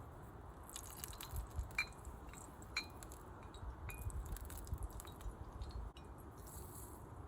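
Handling noises with several light metallic clinks, three of which ring briefly.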